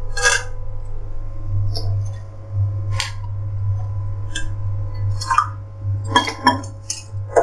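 A spoon clinking against a small vessel in irregular, separate clinks while rice flour is stirred into water to make a thickening slurry for soup. A steady low hum runs underneath.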